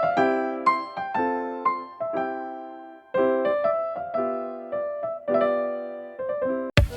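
Background music: electric piano playing struck chords that ring and fade. Near the end it cuts suddenly to a different electronic track with a beat.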